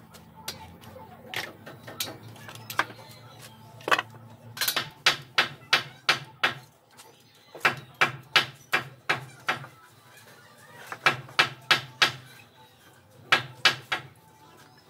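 Quick runs of sharp clicks, about three or four a second in four bursts with pauses between, from yellow one-handed bar clamps being ratcheted tight on a straightedge saw guide. A faint steady low hum sits underneath.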